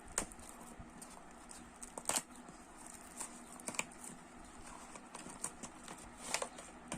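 A cardboard product box being opened and handled: irregular light clicks and taps of the packaging, a few sharper ones spaced a second or two apart.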